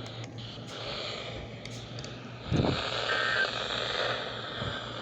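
Weather radio receiver playing steady static hiss over a low hum with no voice. About halfway through a brief low burst of noise comes, followed by a short faint beep.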